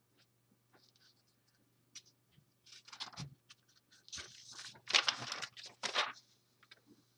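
Sheet of paper on a clipboard rustling and crinkling as it is handled and turned over, in several bursts over about three seconds, after a few light taps.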